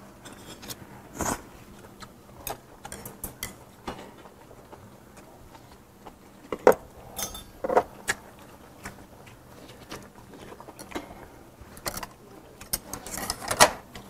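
Close-up eating sounds: scattered light clicks and taps of chopsticks against a dish and the hot-pot, mixed with chewing and mouth sounds.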